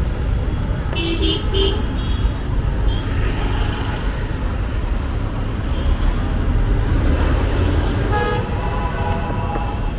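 Busy street traffic with a steady engine rumble. About a second in there is a quick run of short horn beeps.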